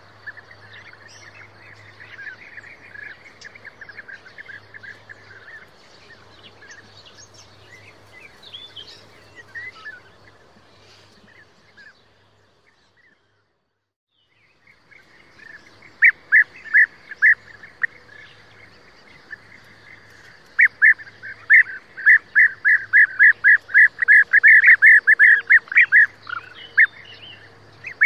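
European bee-eaters calling: a soft, steady chatter of calls, a short break of near silence about halfway, then louder short calls that become a fast run of about four a second.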